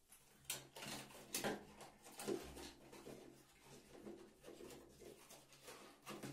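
Faint handling noise: scattered small clicks and knocks of objects being picked up and moved about, the sharpest of them in the first few seconds.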